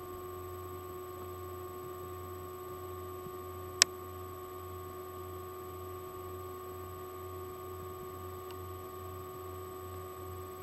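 Steady electrical hum with several constant tones, and one sharp click a little under four seconds in.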